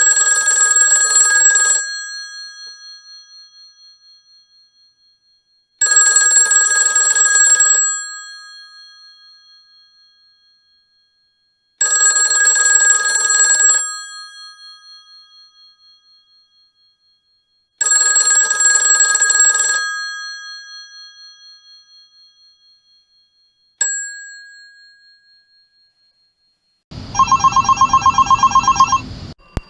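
Old-style telephone bell ringing in four two-second rings about six seconds apart, each fading out slowly after it stops. A single short ding follows, and near the end a different, rapidly pulsing ring sounds for about two seconds.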